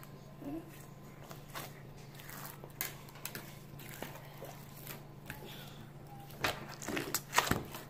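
Homemade slime being stretched and squeezed by hand: a run of small wet clicks and crackles, louder near the end.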